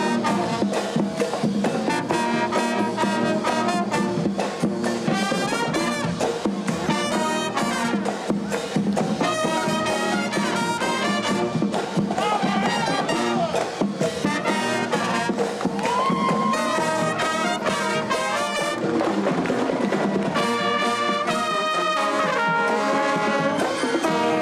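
A marching band's brass section, with trombones, trumpets and sousaphones, playing a tune with a steady beat.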